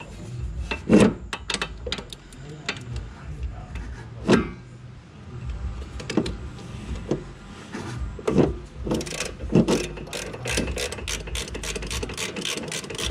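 Hand socket ratchet clicking as the nut on the sway bar end link is undone, with scattered metal knocks from the tool. From about nine seconds in, a fast, steady run of ratchet clicks.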